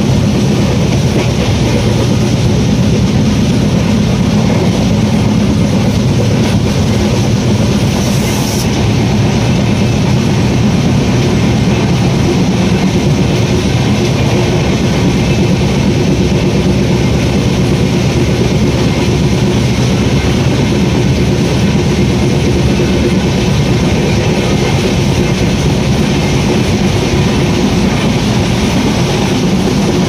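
Steady running noise of an express train of LHB coaches moving at speed.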